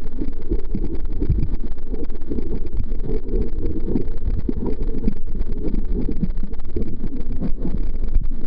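Muffled underwater noise from a camera submerged in lake water: a steady low rumble with irregular sloshing as the water moves around the camera.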